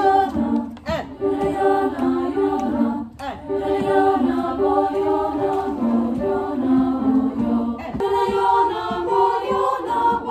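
A small group of student singers singing a cappella in harmony, holding notes in several parts at once.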